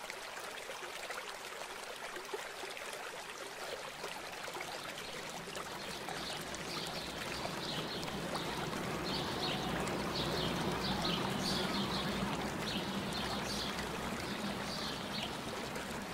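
A steady rushing noise like running water, with short high chirps repeating from about six seconds on.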